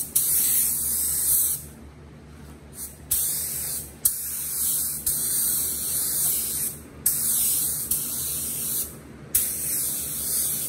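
Air spray gun set to 8 PSI spraying silver base coat in short passes: a hiss that starts sharply with each trigger pull and stops abruptly, about five bursts of one to three seconds each, over a steady low hum.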